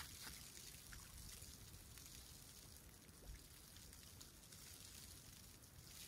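Faint lapping and trickling of calm seawater at the shoreline, with a few tiny splashes.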